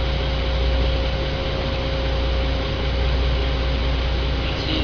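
Boat engine running steadily: a low drone with a faint steady whine above it and a constant wash of noise.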